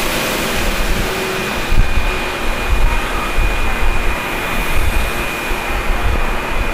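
HB-2000 air compressor of a Keio 7000 series train running while the train stands still: a steady, noisy drone with a thin, high, steady whistle.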